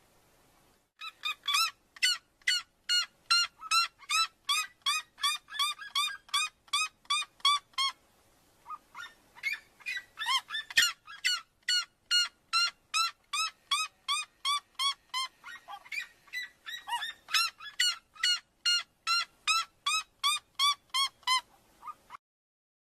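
Red-legged seriema giving its loud yelping call, a long run of sharp repeated notes about three a second, with a short break partway through and notes crowding and overlapping in the middle stretch.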